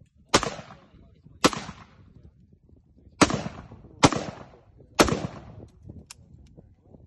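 Short-barrelled Saiga .223 semi-automatic rifle firing five single shots at uneven intervals, each sharp crack trailing off over about half a second.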